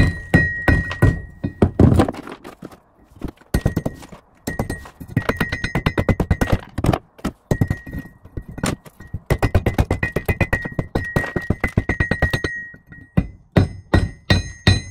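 Hammer bashing rusty iron and rock into powder: quick runs of several blows a second with short pauses between runs, each blow carrying a metallic ring.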